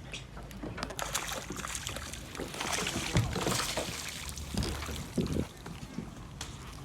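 Water sloshing and splashing, with scattered clicks and knocks, loudest around the middle.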